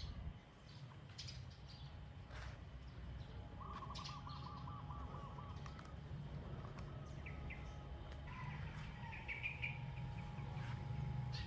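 Birds calling faintly: a quick run of about ten repeated notes a few seconds in, and a few high chirps later, over a low rumble.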